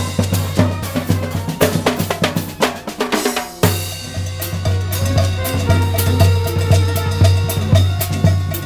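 Street brass band music. Drums beat a fast, busy rhythm, and about three and a half seconds in the low brass and horns enter with held notes over the drumming.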